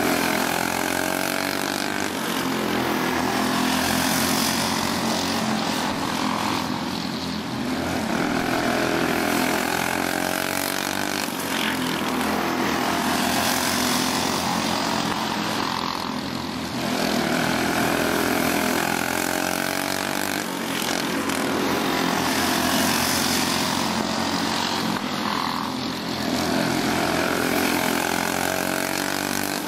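Go-kart engine running hard as the kart laps a small dirt oval. Its pitch and loudness rise and fall in a regular cycle about every four to five seconds as it circles the track.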